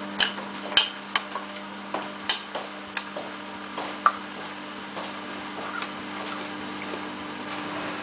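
Samsung WF8804RPA front-loading washing machine with its drum turning under a steady motor hum, during the 800 rpm inter spin. The dirt bike gear in it tumbles and knocks sharply against the drum, mostly in the first half.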